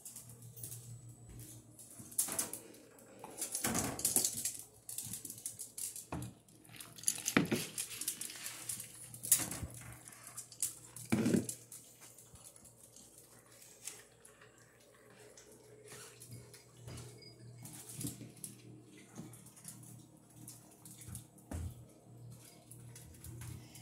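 Irregular clinks and clatters of a dog's food bowl being handled at feeding time, with scattered knocks and shuffling, busiest in the first half.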